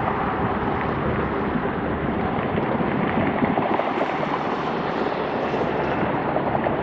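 Steady jet noise from a Qantas Airbus A380's four Rolls-Royce Trent 900 turbofans as the airliner rolls out just after touchdown.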